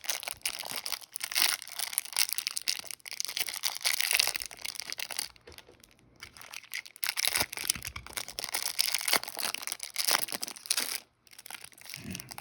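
Rustling and crinkling of a trading-card pack wrapper and cards being handled, in irregular bursts with a short lull about six seconds in.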